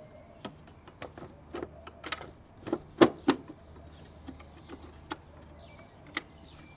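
A 3D-printed plastic filter box being set down and fitted into a car's engine bay: scattered hard plastic clicks and knocks, the loudest two close together about three seconds in.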